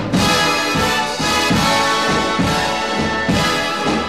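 Background big-band music: a brass section playing over a steady beat.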